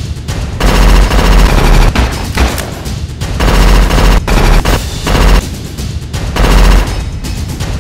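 Movie-style automatic gunfire sound effects, in about five bursts of rapid shots with deep booms, over background music.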